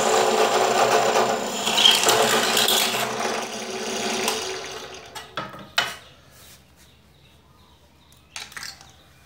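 Bench drill press running and drilling a hole in an aluminium bar. The motor is switched off about four seconds in and winds down, followed by a few short metallic clacks as the aluminium bar is handled on the drill table.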